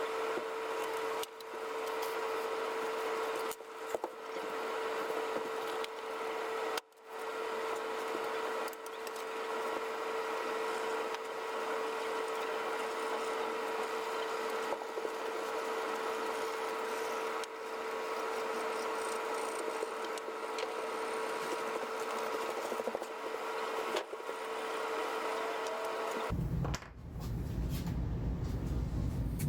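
A workshop power tool running with a steady whine, cut into several short clips. Near the end a different, deeper sound takes over.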